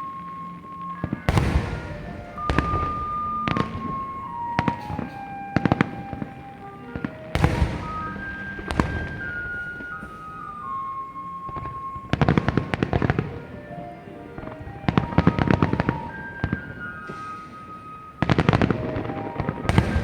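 Fireworks bursting and crackling in rapid clusters, over a simple stepwise melody of music playing along with the show.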